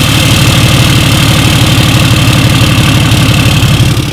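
24-valve Cummins inline-six turbodiesel in a Dodge Ram 2500 idling just after starting, its exhaust open and free-flowing with no emissions equipment: very loud, a fast steady pulsing with a deep diesel growl and a raspy fart-can edge.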